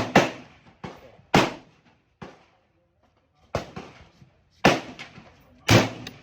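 Gunshots at a shooting range: about five loud, sharp reports at uneven intervals, each with a short echoing tail, and several fainter shots between them.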